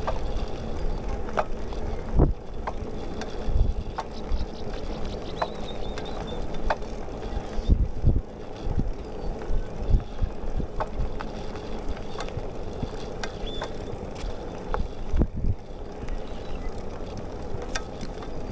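Bicycle riding along a paved path: a steady rolling noise with a low rumble, scattered light clicks and rattles, and a few heavier thumps.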